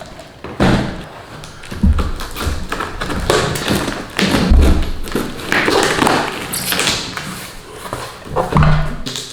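Cardboard box being opened and handled, with irregular scraping and rustling of cardboard and thermocol packing and a few dull thumps as it is set down and moved.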